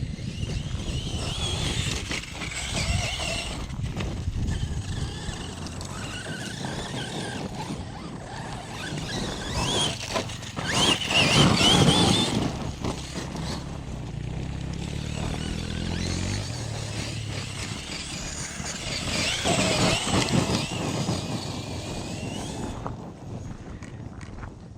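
Electric 1/8-scale RC truck running on rough gravel ground. Its motor whines up and down in pitch with the throttle, loudest in a rising run about eleven seconds in and again around twenty seconds. The tyres crunch and rattle over the rocks throughout.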